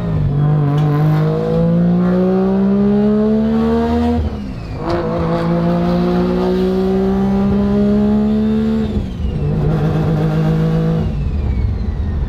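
Street-ported three-rotor rotary engine in a Mazda RX-7 accelerating, heard from inside the cabin. The revs climb steadily and drop back sharply twice, about four and nine seconds in, then ease off near the end.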